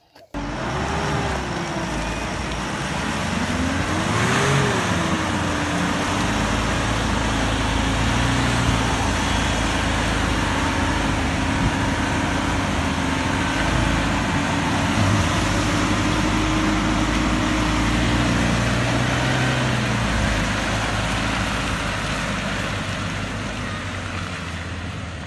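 Pickup truck engines working under load while one truck tows another through deep mud on a recovery strap. The engine pitch climbs and falls twice in the first few seconds, then holds steady until about twenty seconds in, over a constant rushing noise.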